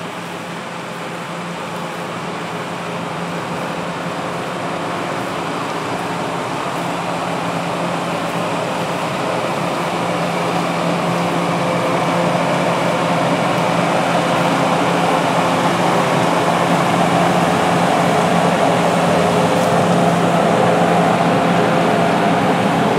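Steady mechanical hum with several held tones over a rushing noise, growing gradually louder.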